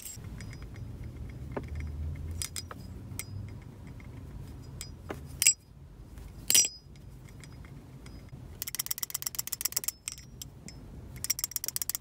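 Clone of a BRS Channel Alpha Beast balisong (butterfly knife) being flipped and handled: a few sharp metallic clicks, several with a thin high ring after them. Then come two spells of rapid rattling as the knife is shaken for a tap test, its handles knocking against the blade through the play in its pivots.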